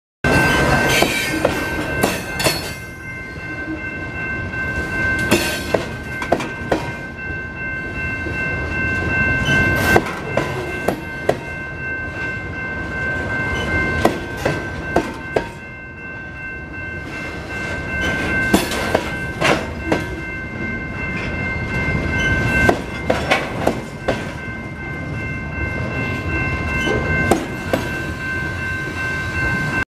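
Freight train wheels rolling over old, poorly maintained jointed track close by: a continuous rumble of steel wheels on rail, broken by sharp clanks, often in pairs or quick clusters, as each wheel set passes over the bolted rail joint. The joint is pushed down into the mud under each load. A steady high ringing tone runs beneath the rumble.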